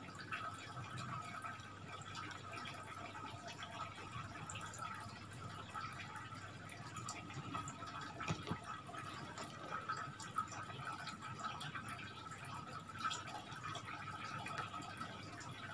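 Quiet handling of a smartphone while its SIM card is taken out with a pin: a few small clicks over a faint, steady high-pitched tone.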